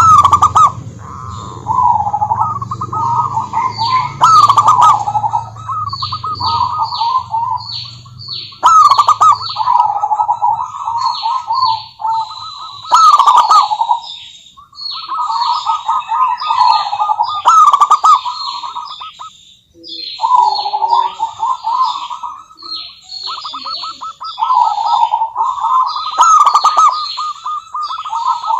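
Zebra dove (perkutut) cooing: repeated phrases of fast rolling, staccato coos, with short pauses between phrases. Short, high, falling chirps come in quick series alongside, and a few sharp clicks stand out.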